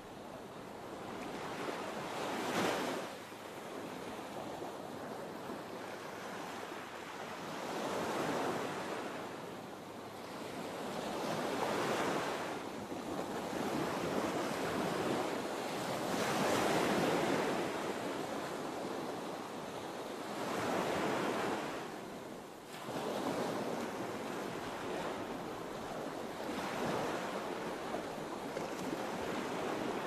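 Ocean surf: waves swelling and breaking in slow, irregular surges every few seconds.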